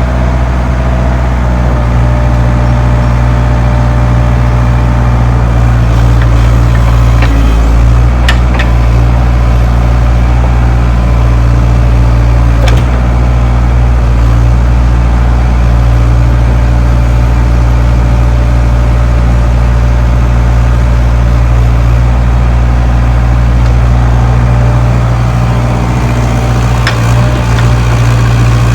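Compact excavator's diesel engine running steadily at working speed, with a few sharp metallic clanks about eight, thirteen and twenty-seven seconds in.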